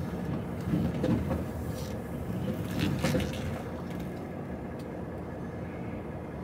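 A lorry's diesel engine running low and steady, heard from inside the cab, with a few clunks and rattles in the first half.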